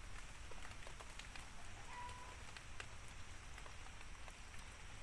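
Faint outdoor background hiss with scattered, irregular small ticks, and one brief steady whistle-like note about two seconds in.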